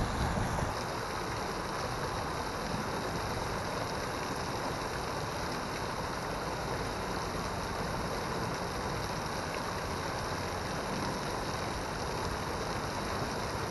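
Small man-made waterfall: water spilling off a stone wall and splashing steadily into a pool.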